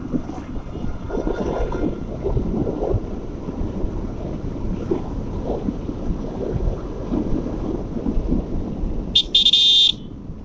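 Road and wind rumble from a moving motorcycle in traffic, then a vehicle horn honks loudly for under a second near the end.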